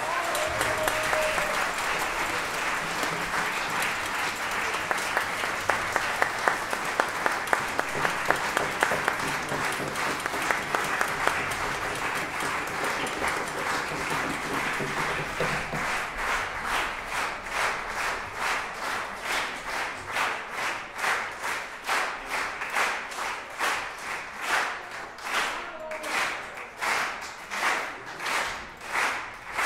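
Audience applauding in a concert hall. About halfway through, the applause settles into rhythmic clapping in unison, about two claps a second.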